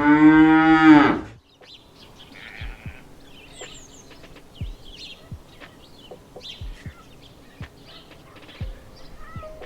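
A domestic cow mooing: one long, loud call that ends about a second and a half in. It is followed by a quieter farmyard background with faint short chirps and scattered knocks.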